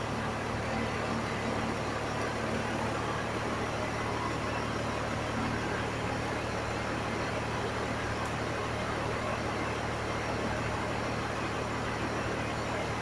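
An engine running steadily at a constant speed, with a low hum.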